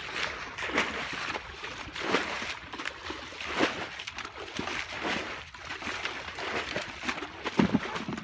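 Muddy pond water being scooped and flung out with a plastic basin and a bucket: repeated splashes and sloshes, about one every second or so.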